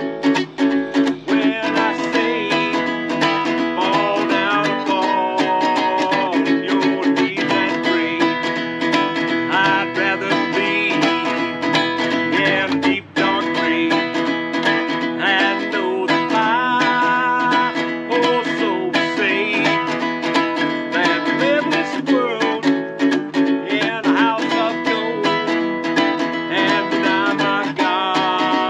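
Background music of plucked string instruments, guitar-like, playing steadily with one brief break about halfway through.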